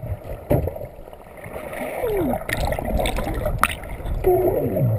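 Underwater: a swimmer's muffled voice making two falling squeals, about two seconds in and near the end, the noise made to attract dusky dolphins. A few sharp clicks and a steady rush of water run underneath.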